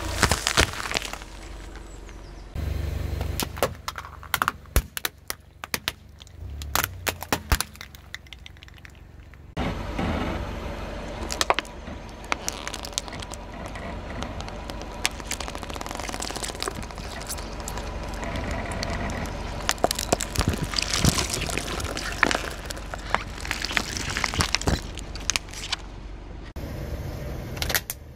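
Car tyre slowly rolling over objects on asphalt and crushing them, close-miked: runs of sharp cracks and crackling as plastic bottles and toys give way, in several short cut-together segments.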